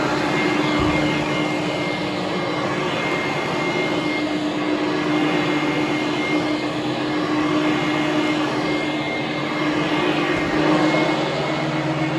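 Hoover Conquest upright vacuum cleaner running steadily over carpet: a constant motor hum and thin whine over rushing air. A lower hum joins near the end.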